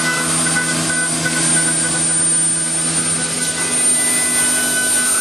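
CNC woodworking machine running steadily: a constant hum with several held tones and a high whine, with no separate knocks or cutting strokes.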